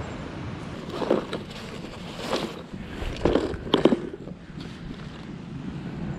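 Plastic tackle box being handled and opened: a handful of clacks and clicks, the sharpest two close together a little before four seconds in, over steady wind noise on the microphone.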